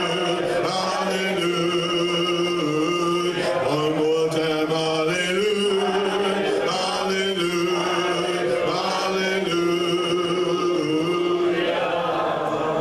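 A man singing a slow church hymn in long held notes that step up and down in pitch.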